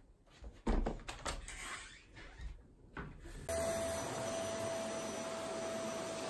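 Knocks and a loud thump as a canister vacuum cleaner's wand and hose are handled, then about three and a half seconds in the vacuum switches on abruptly and runs steadily with a constant whine.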